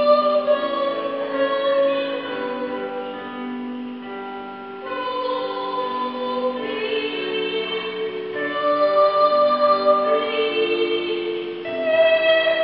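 Children's choir singing held, sustained notes in phrases, growing softer for a moment about four seconds in before the next phrase.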